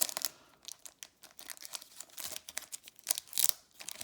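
Foil wrapper of a Pokémon booster pack crinkling in irregular sharp crackles as it is handled and the cards are drawn out.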